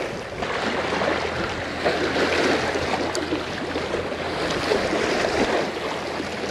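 Small waves lapping and washing over the rocks at the water's edge, a steady rushing noise.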